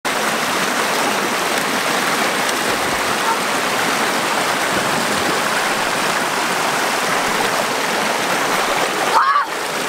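River water rushing steadily over rocks in a shallow rapid.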